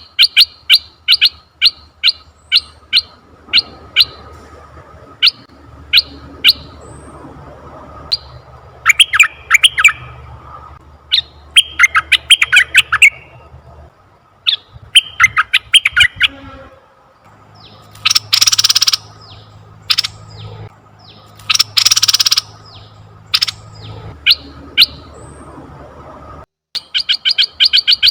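Asian red-eyed bulbul calls from a lure recording: quick runs of short, sharp notes, several bubbly chattering phrases, and two longer harsh, hissing calls about two-thirds of the way through. A faint steady hum lies underneath. The sound drops out briefly near the end, and then the rapid notes start again.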